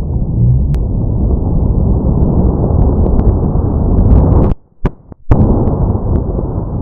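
Loud, continuous low rumbling noise of a firecracker blast tearing apart a teddy bear. It cuts out abruptly twice about four and a half seconds in.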